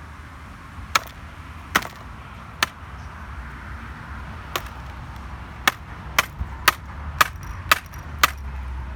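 About ten sharp clicks and snaps as keycaps are torn off a MacBook keyboard, spaced out at first and then coming about twice a second.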